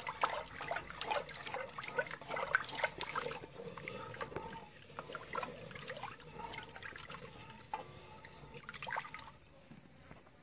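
A wooden spatula stirs palm oil and limestone water into a thick yellow achu soup in an aluminium pot, making wet sloshing and slapping sounds. The strokes come thick and fast for the first few seconds, then thin out.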